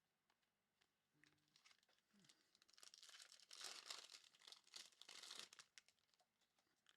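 Faint crinkling and tearing of a trading-card pack wrapper being ripped open, a run of small crackles that is busiest in the middle.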